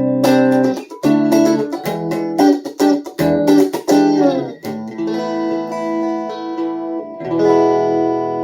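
Master Play PG 20 guitar being played with no words: quick strummed chords for about four seconds, then chords left to ring, and one last strum near the end that sustains.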